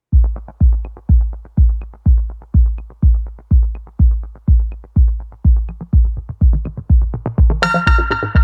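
Electronic background music with a steady kick-drum beat, about two beats a second, and a bright synth chord coming in near the end.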